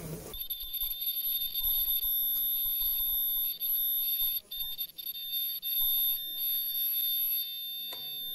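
Disposable face mask production machine switched on at its push button, then running with a steady high-pitched whine; a single click near the end.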